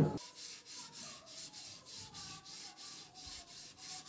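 Wet sandpaper rubbed back and forth over a wet, black-painted metal clock part, about four quick strokes a second, with one loud thump right at the start.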